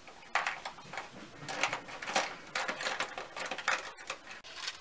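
Makeup brushes and cosmetic cases being handled on a tabletop while a smaller brush is picked out: an irregular run of light clicks, taps and rattles.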